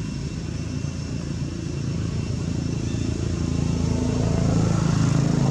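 A motorbike engine running steadily at low revs, growing gradually louder over the last two seconds or so.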